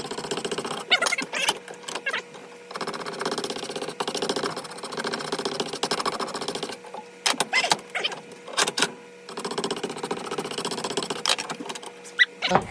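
A wood rasp worked in quick back-and-forth strokes on the wooden shoulder of an axe handle, shaving it down to fit the axe head's eye. The scraping comes in runs, with a few short pauses between them.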